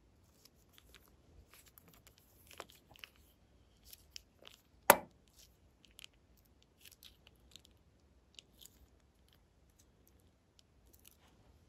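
Thin plastic piping bag crinkling and rustling as it is squeezed and wrung out by hand, with one sharp loud click about five seconds in.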